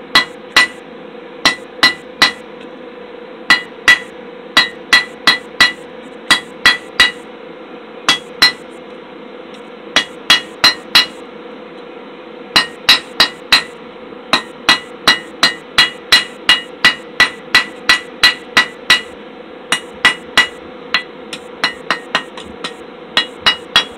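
Hand hammer striking a red-hot steel bar on an anvil, in runs of several quick blows with short pauses, each blow with a short metallic ring, while the end of the bar is forged out into a decorative tail. A steady hum runs underneath.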